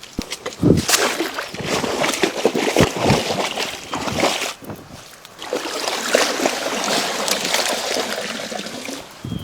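Water splashing and sloshing in a shallow stream, in two long stretches with a short lull about halfway through.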